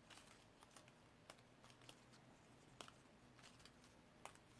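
Near silence: quiet room tone with a few faint, scattered light clicks from small paper craft pieces being handled on a table.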